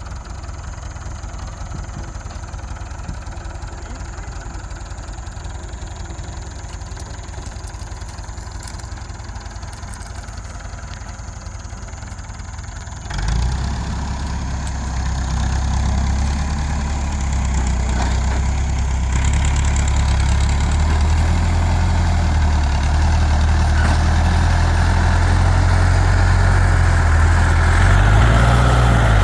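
Tractor engine idling steadily, then opening up suddenly about thirteen seconds in and running louder under throttle, growing gradually louder toward the end.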